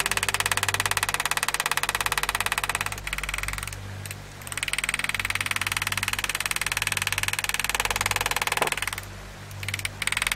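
Rapid, even tapping of a powered engraving handpiece driving a line-cutting graver into steel plate, pausing briefly twice.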